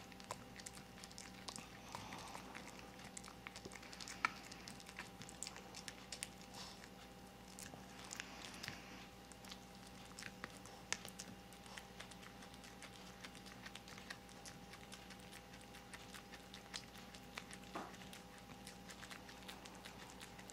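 A Maltese dog gnawing a chewy rawhide, pork hide and chicken mini bone: faint, irregular clicks and crunches of teeth working the hide, with a few sharper ones.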